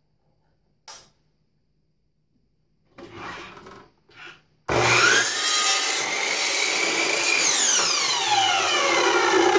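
Miter saw switched on about halfway through, its motor whining up to speed and cutting through a wooden board; from about three-quarters of the way in the trigger is released and the blade spins down with a falling whine. Before that, a single click and brief rubbing as the board and saw head are positioned.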